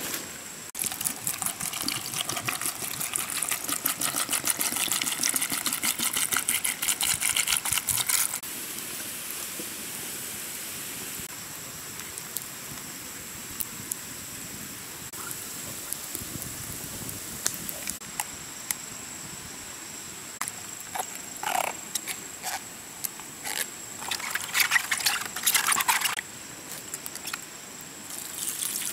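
A dense run of rapid clicking for the first several seconds, then quieter scattered clicks. Near the end, water is poured out of a metal pot and splashes onto dry leaves. A faint steady high tone runs underneath.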